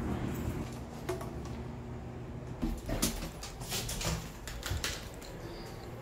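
Elevator arriving and its doors sliding open, with scattered clicks and knocks as someone steps into the car. A low hum stops about half a second in.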